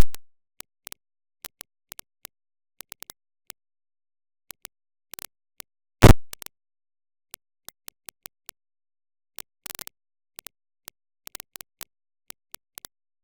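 Near silence broken by scattered faint clicks, with a louder pop at the start and the loudest about six seconds in.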